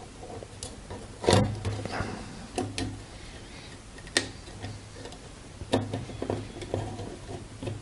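Scattered light clicks and knocks from a router's circuit board and plastic case being handled, the loudest about a second in.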